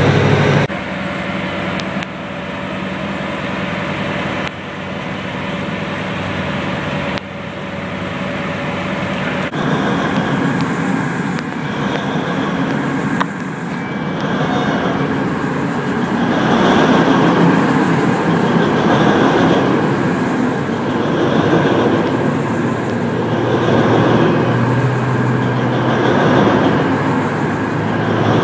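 Heavy mining machinery running with loud, steady machine noise, made of several cut-together clips. In the later part a slow regular pulse comes about every second and a half.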